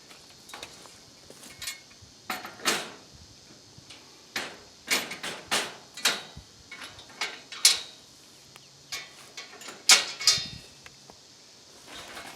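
A series of irregular knocks, clunks and short scrapes, a dozen or so, the loudest about two-thirds of the way in: hard objects being handled and set in place.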